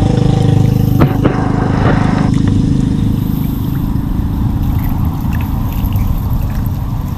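Water trickling and splashing as a bamboo fish trap is lifted out of a flooded field and emptied, with two sharp knocks about a second in, over a steady low rumble.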